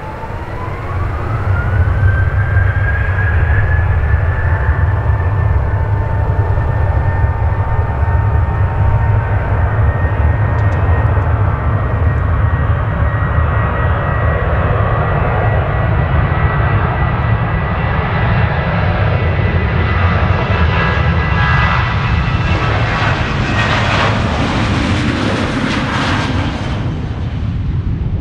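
Boeing 737-800's two CFM56-7B turbofan engines spooling up to takeoff thrust, a whine rising in pitch over the first two seconds as the noise swells. Then the engines run steadily at takeoff power during the takeoff roll, with a low rumble and a held high whine. The jet noise grows harsher as the airliner passes close near the end.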